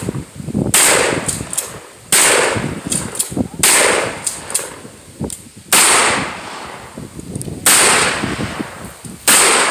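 Gunshots at a shooting range: six loud single shots a second and a half to two seconds apart, each followed by a ringing echo that dies away, with fainter sharp pops between them.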